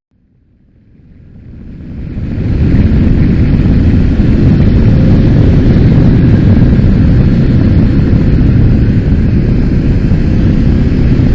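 A loud, steady rumbling noise that fades in over the first two or three seconds and fades out at the very end.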